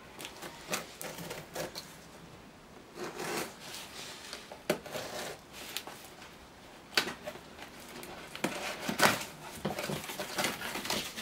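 Small cardboard box being opened by hand: the packing tape on its top slit, cardboard rubbing and scraping, and the flaps pulled open, with a few sharp knocks as the box is handled.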